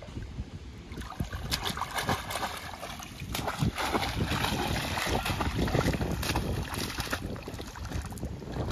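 Water splashing and churning as a man wading waist-deep thrashes a long bamboo pole in the water. The splashing starts about a second in and goes on in irregular splashes, heaviest in the middle.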